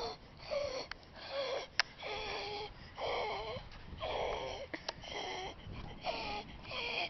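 A person's voice making short pitched vocal sounds, about one a second, without clear words.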